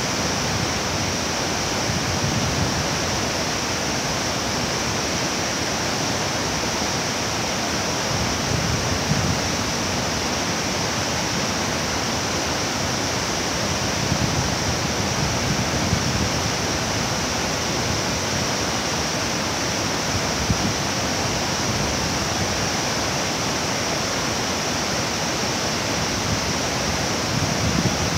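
A tall, tiered waterfall about 65 m high in heavy flow, making a loud, steady rush of falling water with a deeper surge now and then.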